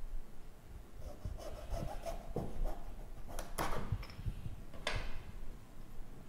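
Thin wooden strips being handled and pressed into place in a wooden wing-rib jig: irregular rubbing and scraping of wood on wood, with a few sharp clicks and taps in the middle.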